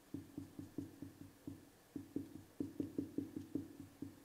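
Dry-erase marker tapping quick short strokes onto a whiteboard while drawing blades of grass, about five or six taps a second with a brief pause near the middle.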